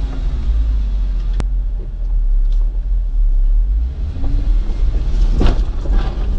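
Jeep Wrangler engine running at low revs with a steady low rumble as the vehicle crawls slowly over rock. A single sharp click comes about a second and a half in, and a brief clatter near the end.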